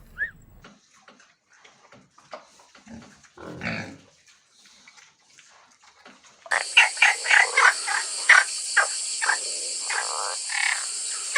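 Animal calls: a few scattered short sounds, then from about six and a half seconds in a dense, louder run of many short calls over a steady hiss.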